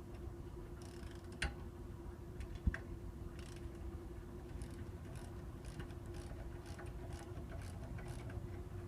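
Light, irregular clicking from a ratchet wrench turning bolts that press the rear wheel hub assembly out of its mount, over a steady low hum. The two sharpest clicks come about one and a half and two and a half seconds in.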